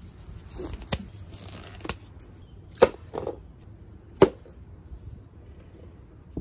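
Small plastic superglue tubes being set down on a workbench: four sharp clicks about a second apart, with light rustling between.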